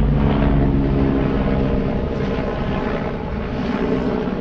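A motor's steady drone with several fixed low tones, slowly fading over the few seconds.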